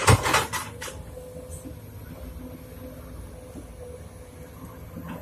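Sumitomo SH210 excavator working: its bucket digs into rocky soil with a short burst of scraping and clattering stones about a second long at the start, then the diesel engine runs on with a steady hum.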